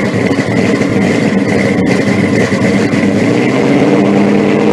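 Car engine idling loudly and steadily.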